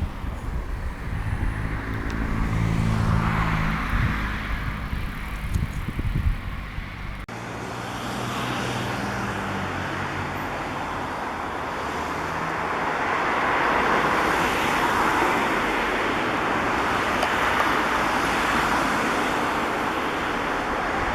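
Road traffic: a motor vehicle's engine hum for the first several seconds, then, after an abrupt change about seven seconds in, a steady hiss of passing traffic and wind.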